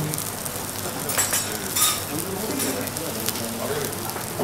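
Food sizzling on a steel teppanyaki griddle, a steady frying hiss, with two brief louder bursts about a second and two seconds in.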